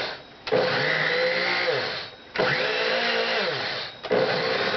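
Vintage Kenmore 14-speed solid-state blender motor worked in pulse mode: three bursts of about a second and a half, each starting sharply and winding down with a falling pitch before the next.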